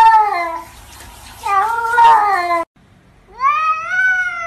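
Domestic cats meowing in long, wavering, speech-like calls, three in all. The second cuts off suddenly, and the last rises in pitch and is drawn out.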